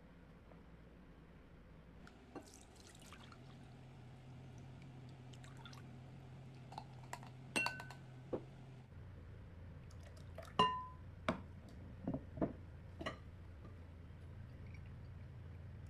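Glass jars clinking and knocking while brine is poured from a jar of pickled garlic into a glass bowl. A few sharp glass chinks ring briefly, the loudest about ten seconds in.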